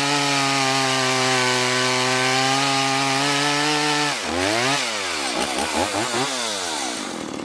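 Stihl MS170 two-stroke chainsaw cutting through a log under load, its engine note held steady, then breaking free of the cut about four seconds in, with the revs rising and falling several times as the throttle is worked.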